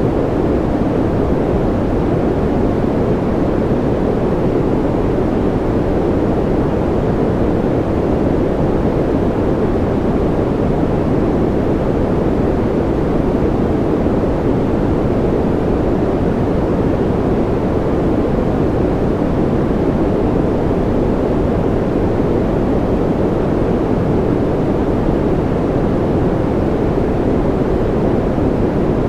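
Steady synthetic noise from a white-noise track, with a deep, muffled rushing tone that never changes and has no patter or separate events.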